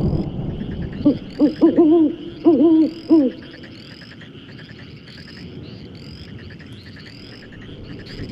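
A rumble of thunder dies away. Then an owl hoots a quick series of about six notes, the longer ones wavering, from about one second in to just past three seconds. Under it a steady chorus of high, repeated chirps and trills goes on.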